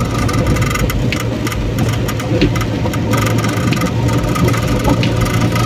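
Car driving on a rain-wet road, heard from inside the cabin: steady engine hum and tyre hiss, with scattered small ticks.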